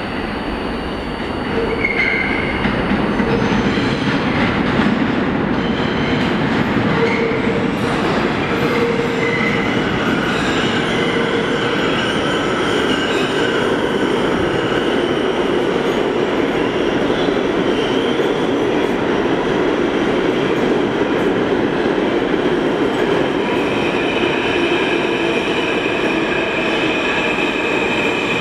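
R160A subway train pulling into an underground station: a loud, steady rumble of wheels on rail that swells about two seconds in. High squealing tones from the wheels run over the rumble, more of them through the second half as the cars run along the platform.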